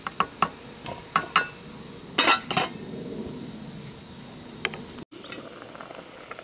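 A few light knocks of a wooden paddle against an enamelware stockpot, then the enamel lid set on the pot with a ringing metal clatter about two seconds in.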